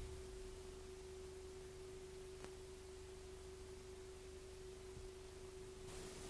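Faint hiss with a single thin steady tone held at one pitch, and one faint click about two and a half seconds in.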